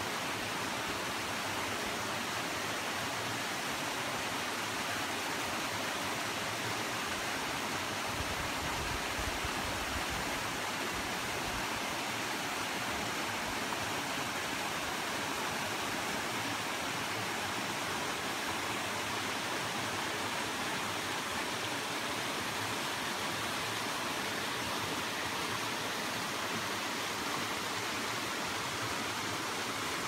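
Mountain stream running over rocks and a small cascade into a pool: a steady, even rush of water, with a brief low rumble about a third of the way through.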